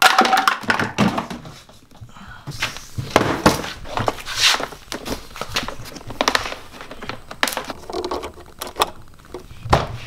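Irregular knocks, thunks and rattles as a Ridgid wet/dry shop vacuum and its plastic hose are handled and set up. The motor is not yet running.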